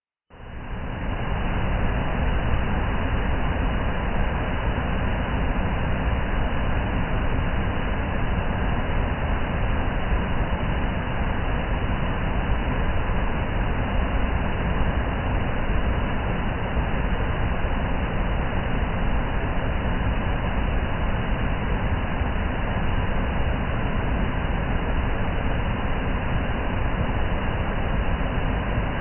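Waterfall's steady rush of falling water, a constant deep roar that fades in over the first second and then holds unbroken.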